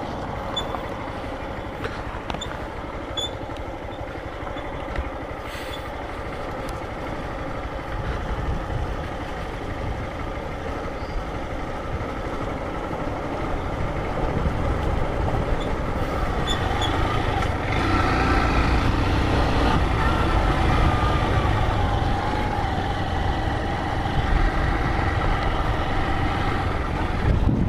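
Motorcycle engine running while riding, with wind noise on the microphone. The engine sound grows louder about halfway through, and a stronger steady engine tone holds through most of the second half.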